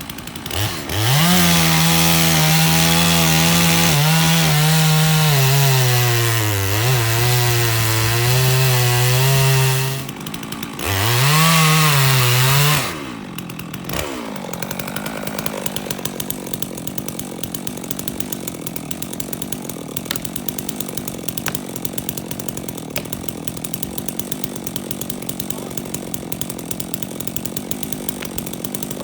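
Stihl MS 660 two-stroke chainsaw at full throttle cutting into a large tree trunk, its pitch sagging and wavering under load. It eases off about ten seconds in, revs hard again briefly, then drops away about 13 seconds in to a much quieter steady sound with faint ticks.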